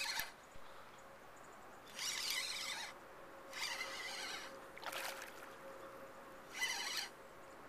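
Fishing reel buzzing in about five short bursts, each under a second, while a hooked pike is played on the line.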